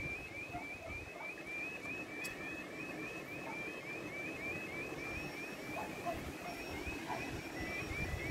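UK level crossing warning alarm sounding its repeating electronic yodel, about three warbling chirps a second, while the barriers come down: the crossing is closing for an approaching train. Wind rumbles on the microphone underneath.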